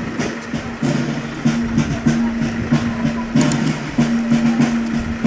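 A marching band playing: held low notes that change every half second or so, with short percussive hits.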